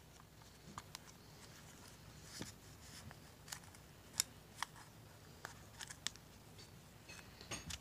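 Headphone ear pad being stretched and pressed onto its plastic ear cup by hand: faint scattered clicks, creaks and rustles, the sharpest a little after four seconds in.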